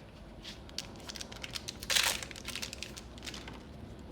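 Trading card booster packs and cards being handled: light crinkling and rustling with scattered small clicks, and one louder crinkle about two seconds in.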